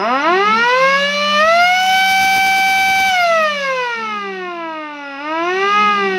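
Vixen 12V electric motor siren run up to full throttle: its wail climbs to a steady peak, then falls away quickly, as its permanent-magnet motor winds down fast. Near the end it swells briefly once more before dropping again.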